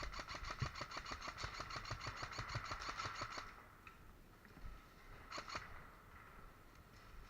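Airsoft electric gun (AEG) firing on full auto, a rapid even stream of shots over the whine of its motor and gearbox, for about three and a half seconds. After a pause comes one short burst of a few shots.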